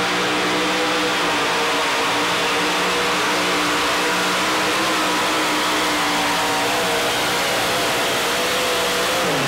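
Supercharged engine of a modified 4x4 pulling truck running hard at a steady high pitch as it hauls the sled. The engine note drops sharply at the very end.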